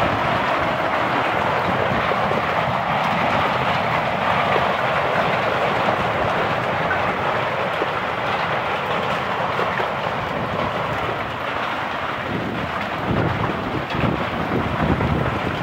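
Heavy hailstorm with rain: hailstones pelting down in a dense, steady roar, with a few heavier low knocks near the end.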